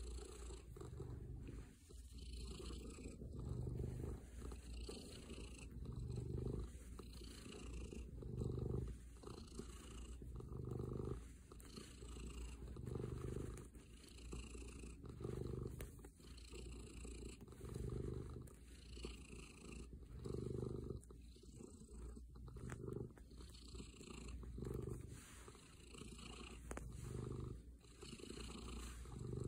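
Domestic black cat purring close up while being stroked, a contented purr. The low rumble swells and eases with each breath, roughly every two seconds.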